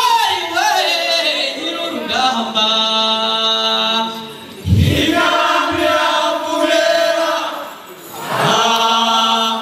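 Group of singers chanting a Rwandan traditional song in long held phrases, with short breaks between phrases and a low thud about halfway through as a new phrase starts.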